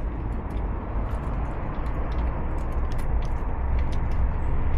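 Steady outdoor rumble and hiss, with scattered faint clicks as a Schrader valve core is screwed back into a tyre valve with a small valve-core tool.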